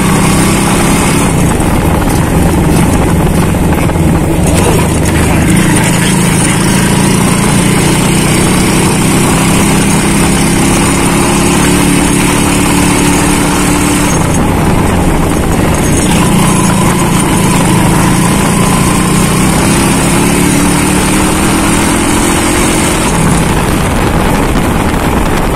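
Honda CB100's single-cylinder four-stroke engine running as the bike rides along, its pitch climbing gradually and falling back at gear changes. Wind and road noise hiss underneath.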